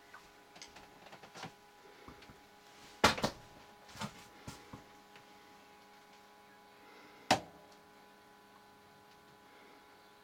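A few sharp knocks and clicks inside a small enclosed room, a cluster of them about three seconds in and another single knock about seven seconds in, over faint steady room tone.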